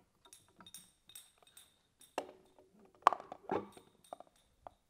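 Metal parts clinking and knocking as a gear pump unit is pushed by hand into its sleeve coupling and motor bracket: light clinks with a faint high ringing at first, then a few sharper knocks, the loudest about three seconds in.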